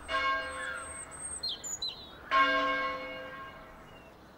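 A single church bell tolling, struck twice about two seconds apart, each stroke ringing out and slowly fading. Birds chirp briefly between the strokes.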